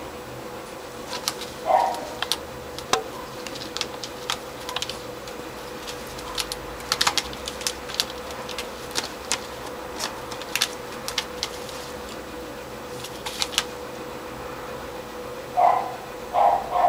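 Scattered light clicks and scratches from a cat playing at the base of a carpet-covered scratching post with a rope toy, over a steady faint hum. A few short mid-pitched sounds come through, one a couple of seconds in and two close together near the end.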